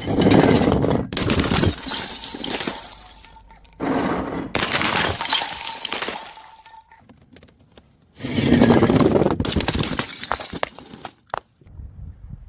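Glass bottles thrown onto stairs, smashing about four times, each crash trailing off over a second or two as the glass breaks apart.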